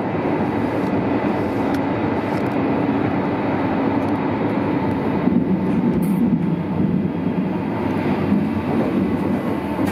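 Berlin U-Bahn H-series train running through a tunnel, heard inside the car by the door: a steady rumble of wheels on rails and running gear, with no clear change in speed.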